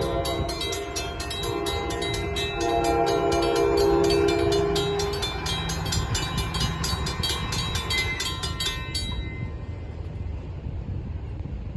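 Train horn sounding two long chord blasts, the second from about two and a half to five seconds in, over the steady rumble of the train, with a fast, even clanging that stops about nine seconds in.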